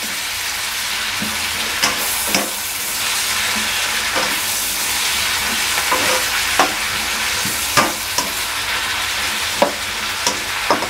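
Shredded cabbage, carrots and meatballs sizzling in oil in a wok on fairly high heat while a spatula scrapes and turns them: a steady sizzle broken by irregular clicks of the spatula against the pan.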